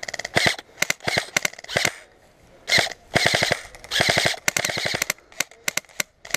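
Airsoft electric rifle, a G&G CM18, firing on full auto in a string of short bursts, each a rapid rattle of shots, with single shots spaced apart near the end.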